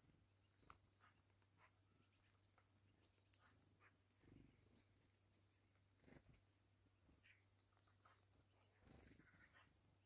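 Near silence: faint scattered taps of a grey-headed woodpecker pecking at suet balls in a wire feeder, with a few faint, thin, high-pitched bird calls.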